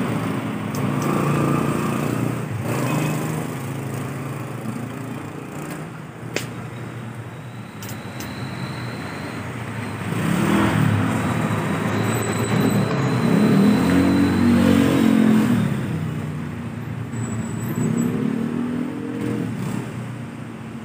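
Street traffic: motor vehicle engines passing, their pitch rising and falling, loudest around the middle, with a sharp click about six seconds in.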